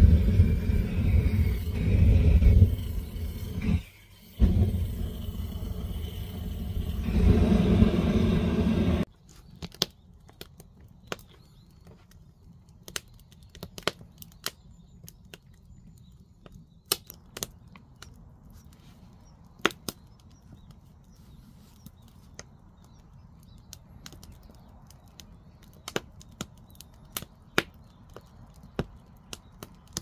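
A loud low rumble for about nine seconds, then cuts off abruptly. Afterwards a wood fire burning in an ondol firebox crackles, with sharp, irregular pops of the burning logs.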